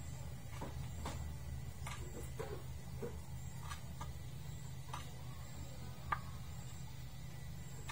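Knife chopping and tapping on a wooden cutting board as a fish is cut up: irregular sharp knocks about once a second, over a steady low hum.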